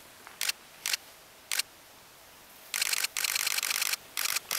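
SLR camera shutter firing: three single frames in the first second and a half, then long rapid bursts in continuous-shooting mode from near the three-second mark, broken by short pauses.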